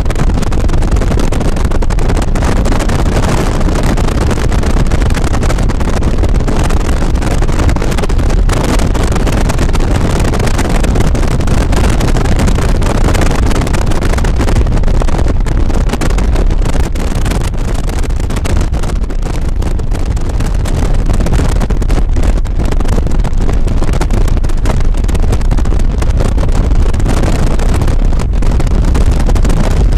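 Steady rushing road and wind noise from a moving car, heavy in the low end, with wind buffeting the microphone.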